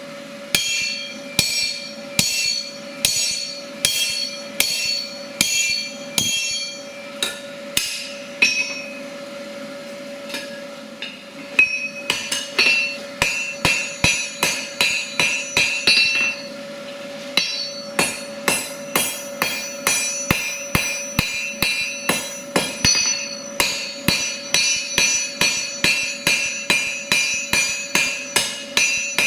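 Forging hammer striking steel on an anvil in a steady rhythm, each blow ringing. The blows come about one and a half a second at first, pause for a few seconds about a third of the way in, then resume faster at about two a second with brighter ringing. A steady hum runs underneath.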